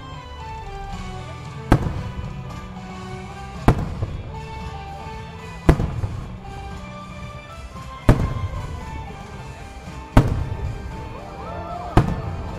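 Aerial firework shells going off one at a time: six sharp bangs about two seconds apart, each trailing off in a low rumbling echo, over music played with the display.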